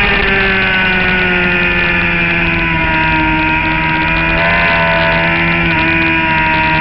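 Suzuki GSX-R750 inline-four engine heard onboard at speed, over a rush of wind. Its note falls over the first few seconds as the bike slows for a corner, then holds roughly steady through the lean.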